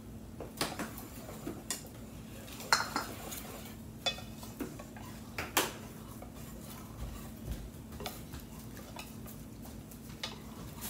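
Wire whisk beating thin batter in a stainless steel mixing bowl, with irregular clinks of the whisk against the metal, the sharpest about three and five and a half seconds in. A faint steady hum runs underneath.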